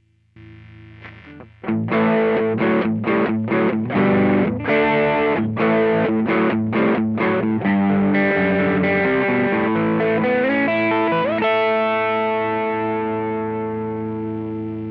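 Electric guitar played through an Ibanez Tube Screamer overdrive pedal: a choppy riff of short, stopped chords, then one chord left ringing that fades slowly near the end.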